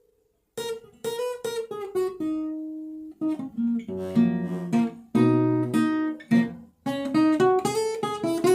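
Acoustic guitar being played: a brief pause about half a second in, then a run of picked single notes and strummed chords, each ringing and fading.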